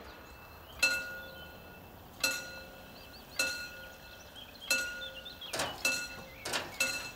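A bell struck repeatedly, each stroke ringing briefly. There are about eight strokes, roughly one every second and a half at first, then closer together near the end.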